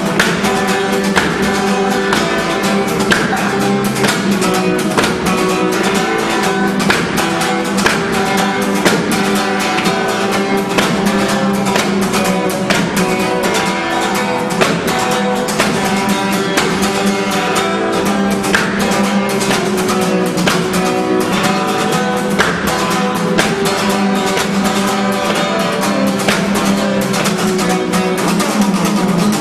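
Music: fast, dense acoustic guitar playing with rapid strums, in a flamenco style.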